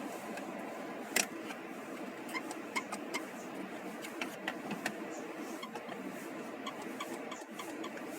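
A string of irregular light clicks and ticks, the loudest about a second in, over a steady background noise.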